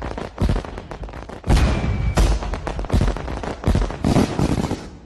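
Fireworks sound effect: repeated bangs and crackling, with a short whistle about two seconds in, fading near the end.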